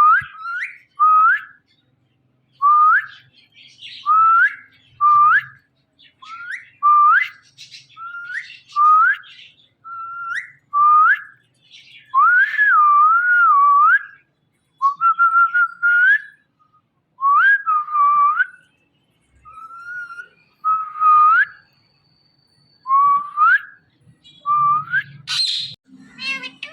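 Indian ringneck parrot whistling: a long string of short rising whistles, roughly one a second, some drawn out into a wavering warble. A brief harsh call comes near the end.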